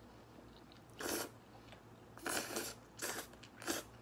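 A person slurping jjajangmyeon (noodles in black bean sauce) up from chopsticks: four short sucking slurps, one about a second in, then three in quick succession in the second half.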